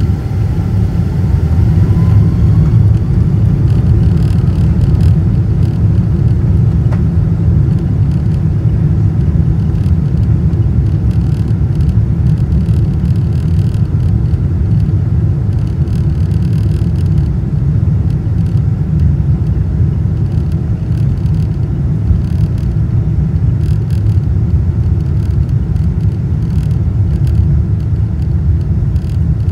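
Boeing 777-200's jet engines at takeoff thrust heard from inside the cabin during the takeoff roll: a loud, steady low rumble of engines and runway. Over the first couple of seconds the sound swells and a faint whine rises in pitch as the engines spool up.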